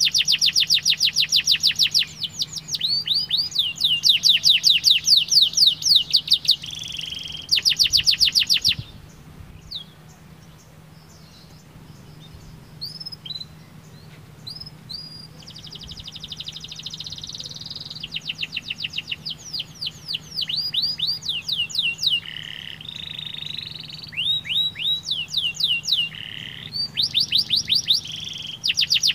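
Domestic canary singing: loud rolling trills of rapidly repeated high notes in long phrases. The song breaks off about nine seconds in for several seconds of scattered single chirps, then the trilled phrases resume.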